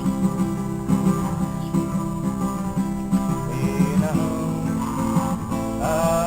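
Acoustic guitar (violão) being strummed steadily.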